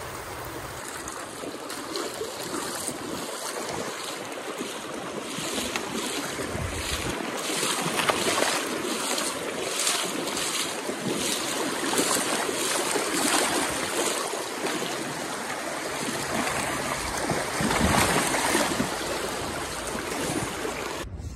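Shallow creek water rushing steadily over a rocky riffle.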